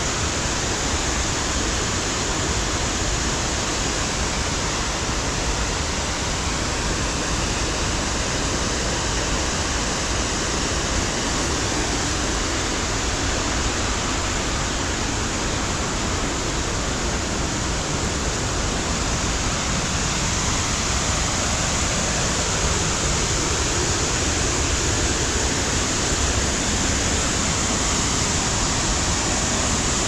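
Waterfall rushing, a steady, even noise of falling water.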